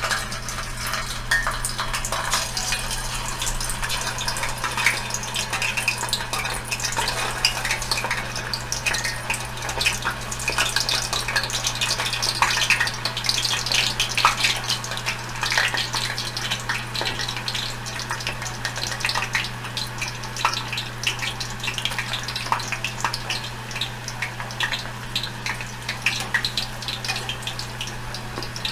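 Frozen, par-boiled potato sticks deep-frying in hot oil in a stainless steel saucepan: a steady sizzle of dense crackling as the bubbling oil cooks them.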